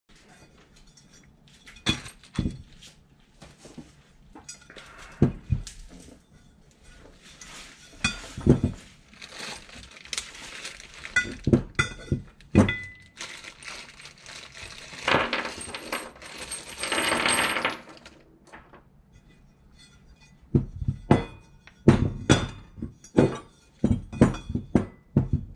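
Metal parts being handled and set down on a workbench: a string of clinks and knocks as cast-aluminium intake runners and small fittings are moved about. About two thirds of the way in there is a longer rattling stretch, like small loose metal fittings being tipped out onto the bench.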